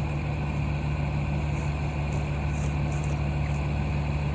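Cat 305 mini excavator's diesel engine running steadily, with a few faint light ticks.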